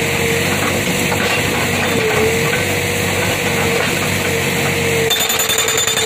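Hydraulic rock breaker (ACE 80S, 80 mm chisel) on a backhoe loader, hammering rock with rapid continuous blows over the carrier's diesel engine running. The sound changes abruptly about five seconds in.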